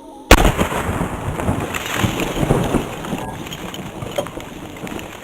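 A .45-70 rifle shot bangs about a third of a second in, then a dense crackling patter of shattered ice fragments raining down, slowly fading.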